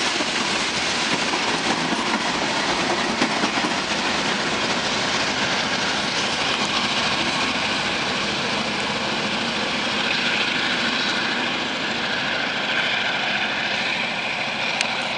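BNSF local freight train rolling past, its steel wheels clattering over the rail with a steady rumble.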